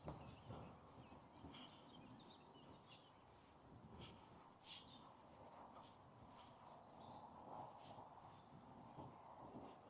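Faint birdsong: scattered high chirps with a short high warble about six seconds in, over a faint low rumble.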